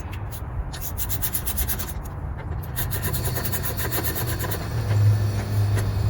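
Runs of rapid ratcheting clicks from hand work on the outboard, over a steady low hum that grows louder near the end.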